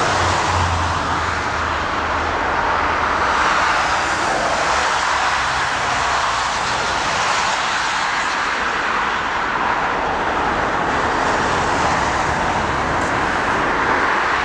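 Steady, even roar of a Boeing 777-300's jet engines as the airliner rolls along the runway, with a faint low hum underneath and no marked rise or fall.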